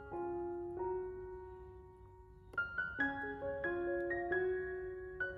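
Background piano music: a soft chord rings and fades through the first half, then a run of gentle notes follows from about two and a half seconds in.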